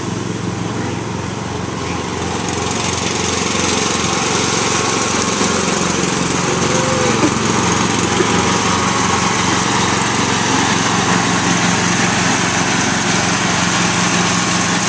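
A Yard-Man riding lawn mower's engine running steadily as the mower drives past, getting louder over the first few seconds as it comes closer.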